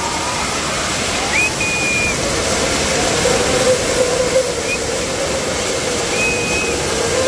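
Firework fountains spraying sparks with a loud steady hiss. Several short high whistles cut in, and a lower whistle grows and rises slightly near the end.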